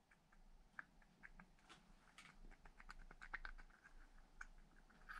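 Near silence with faint, scattered clicks and light taps: a small metal scooter variator part being handled and turned over in the hands.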